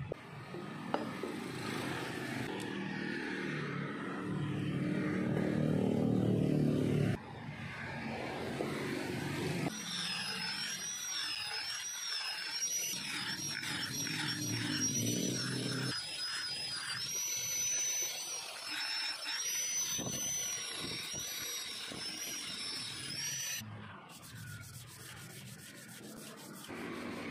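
Angle grinder with a flap disc running against a steel axe head: a high whine that wavers in pitch as the disc is pressed on and eased off, cutting off suddenly near the end. Quieter repeated rubbing strokes of hand sanding on the metal follow it. A louder, lower sound fills the first several seconds.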